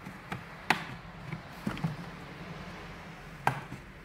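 Plastic back-cover clips of a Samsung Galaxy Tab A 10.1 tablet snapping loose one after another as a pry tool works around the edge: a series of sharp clicks, the loudest about a second in and near the end.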